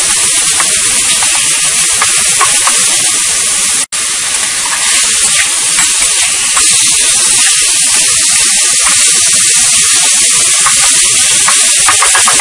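Ground pork sizzling loudly and steadily in a hot wok, with faint clicks and scrapes of a metal spatula against the pan near the end. The sizzle cuts out for an instant about four seconds in.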